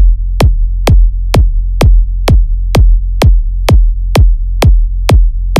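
Electronic dance-music kick drum hitting on every beat, a little over twice a second, over a held sub-bass note.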